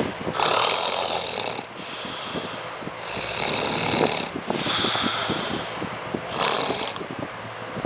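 A person snoring: about five noisy, rasping breaths, each lasting about a second, with a low fluttering rattle beneath them.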